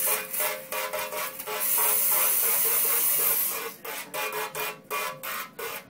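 A spray gun's jet hissing into a stainless steel sink at the drain, with a pitched ring from the steel. It comes in quick spurts, about three a second, then one long unbroken blast from about a second and a half to three and a half seconds in, then quick spurts again.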